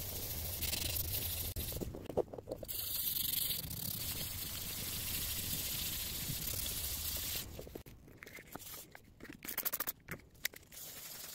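A wet clear plastic lens dome being rubbed hard with a flexible blue sheet: a steady, scratchy rubbing that pauses briefly about two seconds in and stops after about seven seconds. Then a few light knocks and clicks as the lens is handled on a wooden bench.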